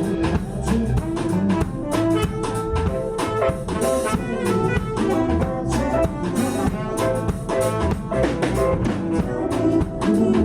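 Music with horns and a drum kit, jazzy in style, playing steadily.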